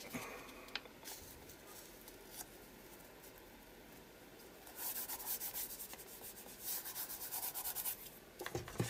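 Hands rubbing a glued strip of torn paper flat onto a paper journal page. Quiet at first, then quick repeated scratchy rubbing strokes over the second half.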